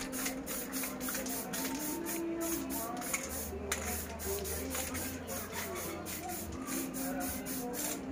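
Aerosol spray-paint can hissing in a series of short sprays with brief breaks between them, as it coats a metal motorcycle muffler.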